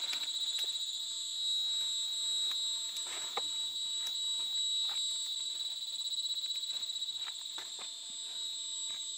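Insects buzzing in a steady, shrill, high drone with a slight pulse, dotted with a few faint rustles and snaps of leafy branches being pulled by hand.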